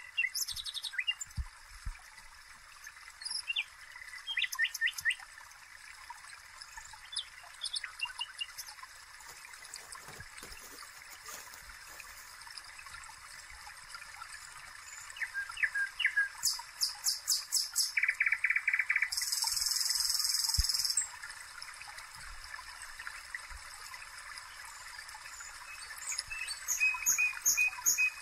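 Small birds chirping and trilling, with rapid runs of repeated chirps about two-thirds of the way through and again near the end, over a steady soft hiss from the patties frying in oil.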